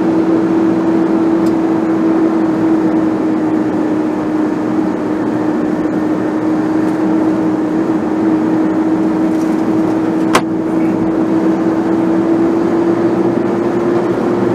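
Car driving in slow city traffic, heard from inside the cabin: steady engine and road noise with a steady hum that rises slightly near the end as it speeds up. A single sharp click about ten seconds in.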